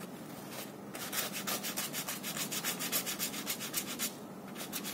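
The bristles of a hair-dye tint brush rubbing dye across a sheet of paper in quick back-and-forth strokes, about six a second, pausing about four seconds in.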